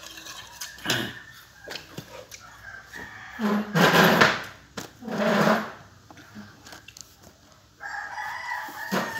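A rooster crowing, with loud, harsh calls about midway and a long, level call near the end.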